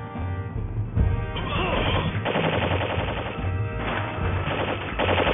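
Automatic gunfire in two long, rapid bursts, the first starting about a second in and the second about two-thirds of the way through, with music underneath.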